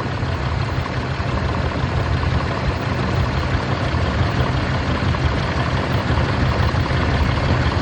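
2021 Ram 2500's 6.7 L Cummins inline-six diesel idling steadily with the growl heard at idle, strongest behind the grille. The engine-driven fan clutch wobbles and the belt wanders on its pulley, pointing to play in the fan clutch or its pulley as the cause.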